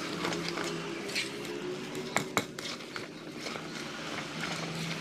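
Spatula stirring and folding thick flour cake batter in a metal mixing bowl: irregular soft scrapes against the bowl, with two sharp knocks a little past two seconds in.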